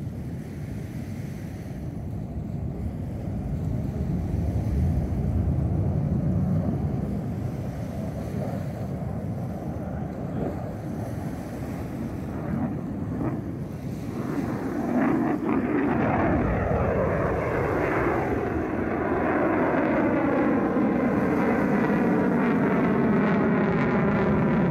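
Jet noise from a USAF F-35A's single Pratt & Whitney F135 afterburning turbofan flying overhead in a display. A steady low rumble grows louder about halfway through, then takes on a phasing whoosh that sweeps in pitch as the jet passes.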